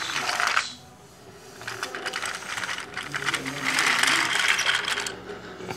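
Battery-powered Tomy toy train engine's small geared motor running along plastic track, a rapid clicking rattle. There is a short burst at the start, a brief lull, then a longer, louder stretch from about a second and a half in that fades shortly before the end.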